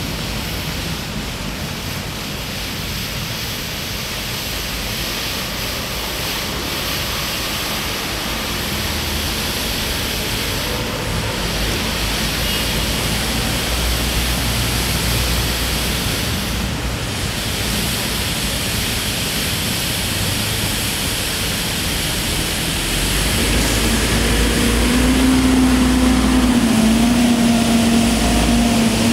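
Steady rush of a large stone fountain's water splashing into its basin, with city traffic behind. In the last few seconds a motor's low, wavering hum rises over it.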